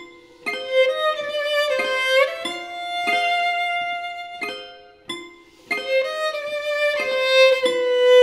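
Solo violin playing slow, sustained melody notes over piano chords struck at intervals, with one note sliding up to the next about two seconds in.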